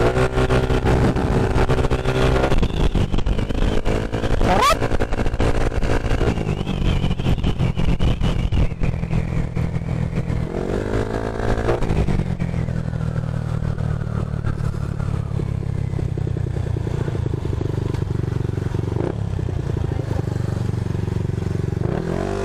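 Yamaha Mio i 125 scooter's single-cylinder engine riding under throttle, its pitch climbing in several surges of acceleration. From about halfway through it settles to a lower, steady running as the scooter slows in traffic.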